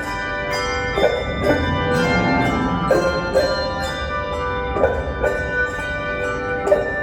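A handbell choir playing a piece: bells struck in clusters every second or so, each note ringing on so that the chords overlap.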